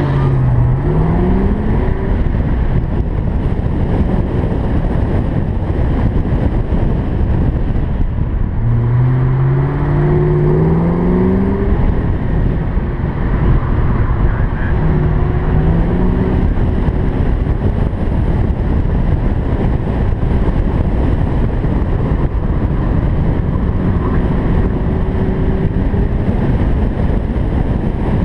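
Car engine accelerating hard in short pulls, its pitch climbing several times (near the start, about 9 to 12 seconds in, and again around 15 seconds), under a heavy rush of wind buffeting a hood-mounted microphone.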